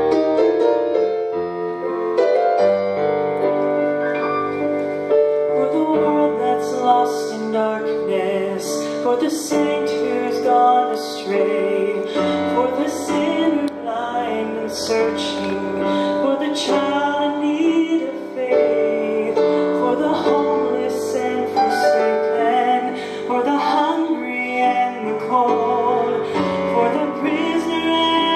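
Church choir of mixed voices singing a gospel song with piano accompaniment.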